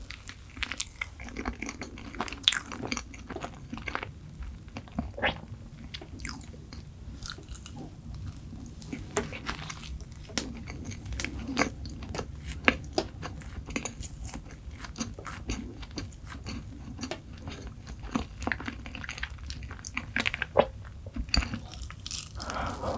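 Close-miked chewing and biting of sweets, with many sharp crunching clicks throughout.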